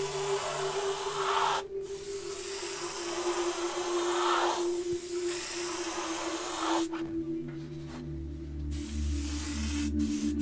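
Airbrush spraying paint: a steady hiss of air and paint from the nozzle in two runs, a short one and then a longer one of about five seconds, stopping about seven seconds in.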